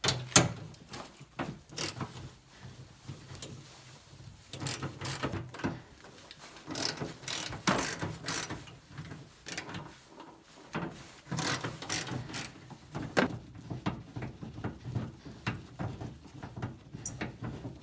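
Hand ratchet wrench clicking in quick runs as bolts are backed out of a pickup tailgate, with pauses between strokes and a few sharper metal knocks.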